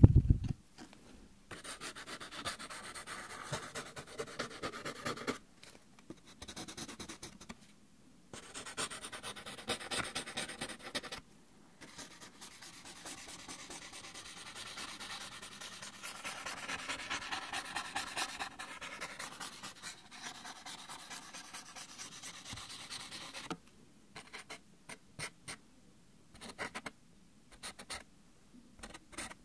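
Sheets of paper rubbed and slid against each other in the hands in long rustling stretches, then crinkled and flicked in short separate crackles near the end.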